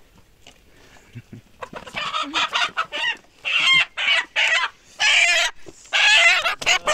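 Chickens squawking loudly in alarm as they are grabbed and chased, a string of harsh, wavering cries that starts about a second and a half in.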